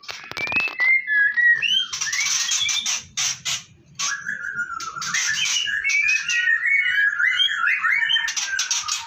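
Birds chirping and calling in quick, varied whistled notes, with a run of harsh, clicking calls about two seconds in. The birds are white-rumped shamas (murai batu) in a breeding cage.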